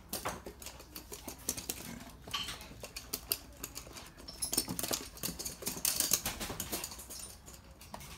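Toy poodles' claws clicking and scrabbling on a hard floor as they run, a rapid irregular patter that grows busier and louder past the middle.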